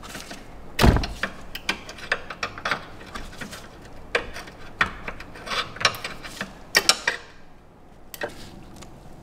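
Irregular metallic and plastic clicks and knocks from a screwdriver working the ABS wheel-speed sensor's sheathed cable free of its metal brackets and clips. The loudest knock comes about a second in.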